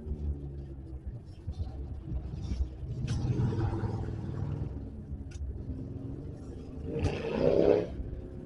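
Chevrolet V8 engine running with a low rumble, revved briefly about three seconds in and again, louder, near the end.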